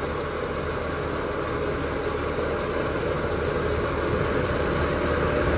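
Diesel engine of a tracked rice combine harvester running steadily as it is driven up onto a low-bed trailer, growing a little louder toward the end.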